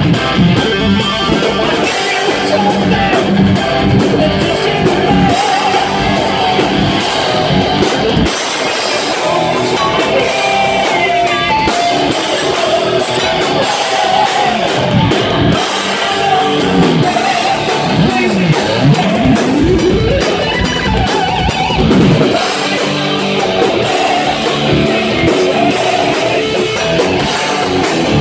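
Live heavy metal band playing loud: distorted electric guitar over drums and bass, the guitar swooping up and down in pitch with wide bends through the middle.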